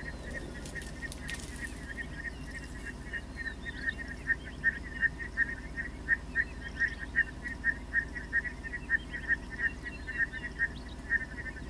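A bird calling over and over in a fast series of short notes, about three a second, louder from about four seconds in, with a few higher chirps.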